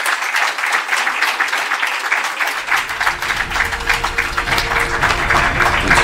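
Audience applauding, dense steady clapping. About halfway through, music fades in beneath the applause.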